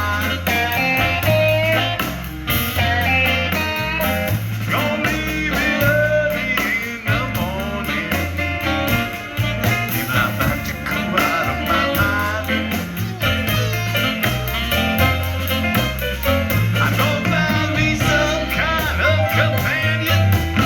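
Blues band playing: a stepping bass line and steady drums with cymbals under a bending melodic lead.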